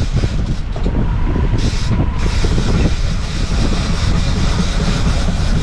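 Boat under way: the twin outboard motors running under heavy, steady wind rumble on the microphone, with water rushing past the hull.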